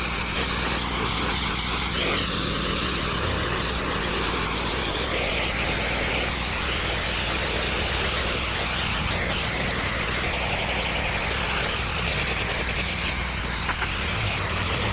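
Pressure washer's engine running steadily, with the high-pressure water spray hissing against a concrete driveway.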